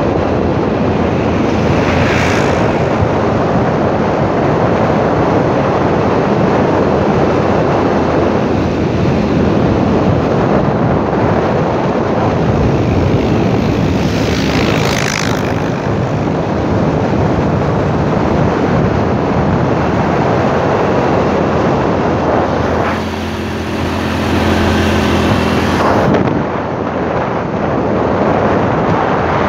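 Wind buffeting the microphone on a moving motorcycle, over the motorcycle's engine running. About three-quarters of the way through, the wind eases for a few seconds and the engine's steady hum stands out more clearly.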